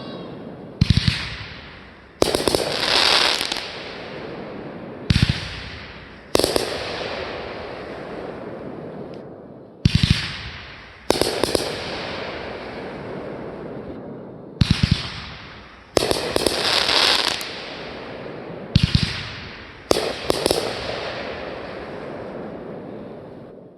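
Fireworks going off in five pairs of bangs, a few seconds apart: each pair is a deep thud, then about a second later a sharper bang trailing into a crackling hiss.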